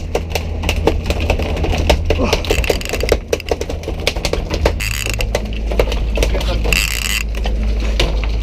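A boat engine running steadily, its note changing about five seconds in, with a rapid clatter of clicks and knocks over the first half and two short bursts of hiss later.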